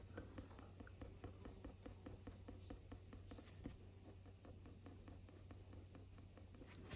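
Coloured pencil making short, light fur strokes on drawing paper: a faint run of quick scratches, several a second.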